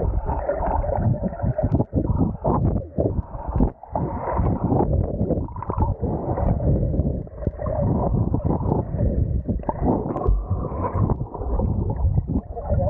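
Muffled underwater sound of a swimming pool, heard with the microphone below the surface: irregular sloshing, gurgling and low thumps as swimmers move through the water, with no high sounds getting through.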